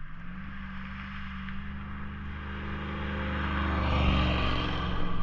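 A motor vehicle driving past, its engine hum and tyre noise growing louder to a peak about four seconds in.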